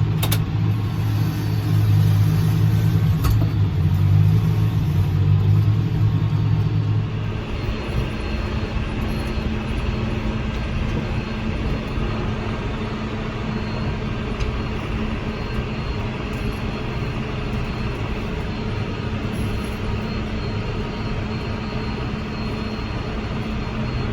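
Tractor engine running steadily. About seven seconds in, the deep rumble drops off and a quieter, even hum takes over, with a couple of brief clicks near the start.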